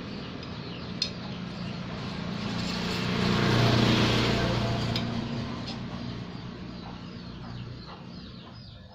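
A vehicle engine running, growing louder to a peak around the middle and then fading away, with a sharp clink about a second in.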